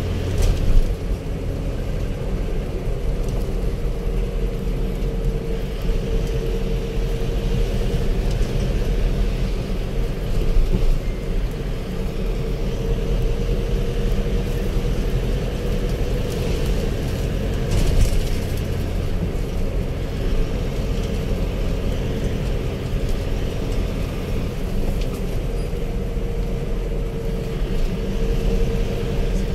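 Steady engine and tyre rumble inside the cabin of a moving road vehicle, with a constant hum. Brief jolts come just after the start and again a little past halfway.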